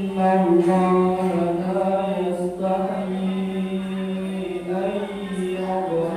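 A single voice chanting Quran recitation in a melodic style, holding long, steady notes, with short breaks between phrases.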